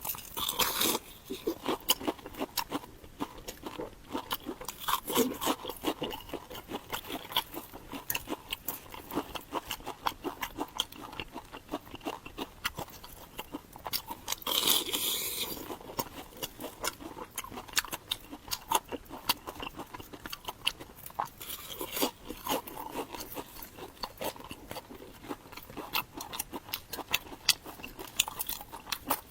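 Close-miked mouth sounds of a person biting and chewing fried brown-sugar glutinous rice cakes: a run of quick crisp crunches and wet chewing clicks, with a louder burst of crunching about halfway through.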